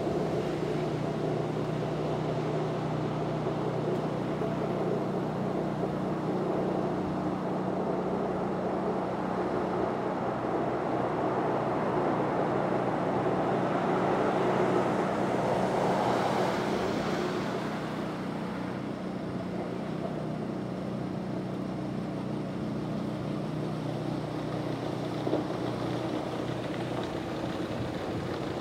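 Tractor engine and front-mounted rotary snowblower running steadily while clearing snow. The drone swells for a few seconds about halfway through, then settles a little quieter.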